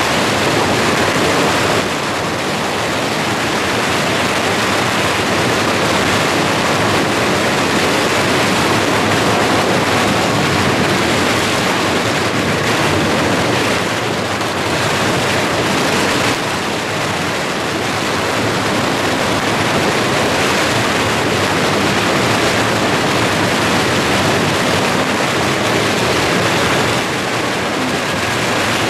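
Long strings of firecrackers going off as a dense, unbroken crackle, the plough-firecracker barrage (犁炮) set off ahead of Mazu palanquins in a temple procession.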